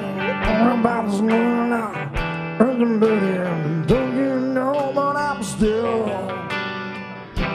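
Live southern rock band playing: a bowed fiddle carries a lead of sliding, bending notes over electric guitar chords and regular drum hits.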